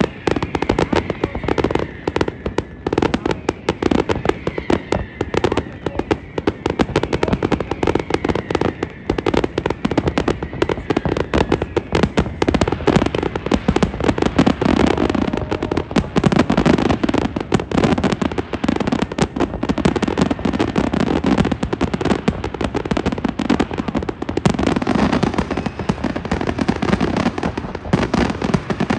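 Fireworks display going off in a dense, continuous barrage of bangs and crackling bursts, with no let-up.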